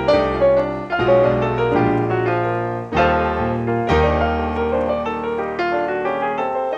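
Solo piano music: a slow, gentle piece with a new chord or bass note struck about once a second over sustained low notes.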